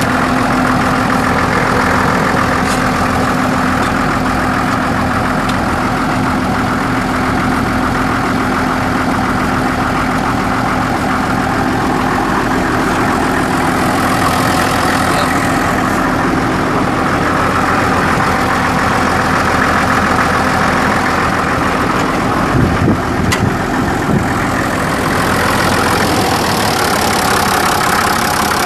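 Case 930 tractor's 6.6-litre six-cylinder diesel engine idling steadily, heard close up, with a few brief knocks about three-quarters of the way through.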